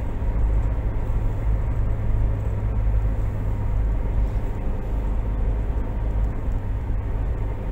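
A car cruising at steady speed, heard from inside the cabin: an even low rumble of engine and tyre noise on concrete pavement.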